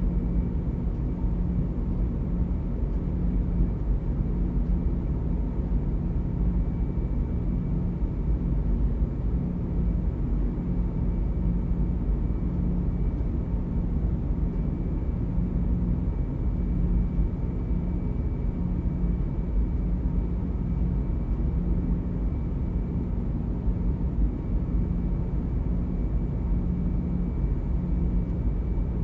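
Steady low rumble of a car ferry's engines and hull vibration under way, heard inside a passenger cabin, with a low hum that throbs slowly.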